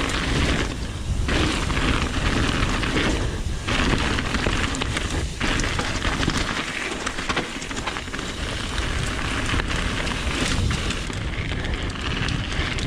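Trek Remedy mountain bike descending fast on a loose gravel trail: tyres crunching and rolling over stones in a continuous loud rush, with wind buffeting the camera microphone.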